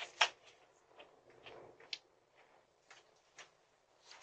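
Footsteps on a concrete porch walkway: a few faint, irregular taps and clicks, two louder ones right at the start, picked up by a doorbell camera's microphone.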